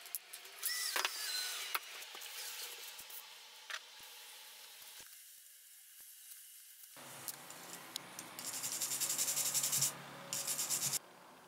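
Paper tissue rubbed in quick back-and-forth strokes over a freshly salt-water-etched steel blade, wiping off the etching residue, in two runs near the end. Before that, lighter scraping and rustling as the masking and wet pad are handled.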